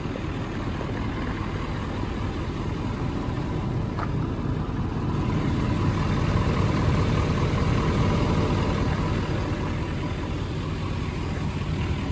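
Ford 6.7-litre Power Stroke V8 turbo-diesel idling steadily, a little louder in the middle.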